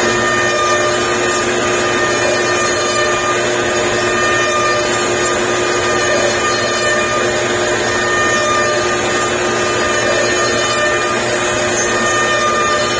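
Shapeoko CNC routers running a job: the router spindles whine steadily with several held pitches over a constant rushing hiss, unchanging throughout.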